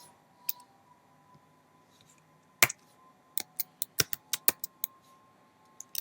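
Computer keyboard clicks: one sharp keystroke about two and a half seconds in, then a quick run of about eight keystrokes.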